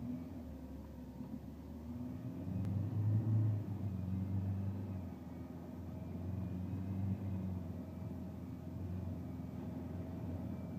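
Vehicle engine running as it is driven off road on two deflated tyres carried by run-flat inserts. The engine note swells about three seconds in, then runs on steadily.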